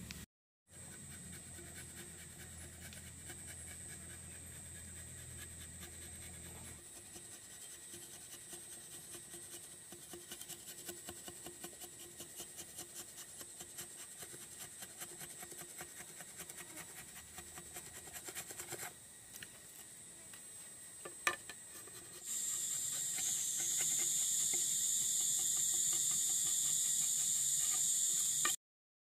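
A large knife blade scraping and shaving green bamboo in quick repeated strokes, with a single sharp click. In the last several seconds a loud, steady, high insect drone takes over, then cuts off abruptly.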